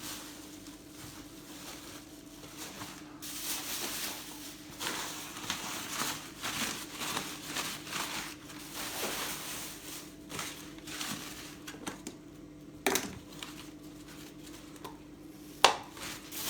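Hands rummaging through a box of flood-soaked stock: items and paper rustling and being shifted about, then two sharp knocks near the end, the second the loudest. A steady low hum runs underneath.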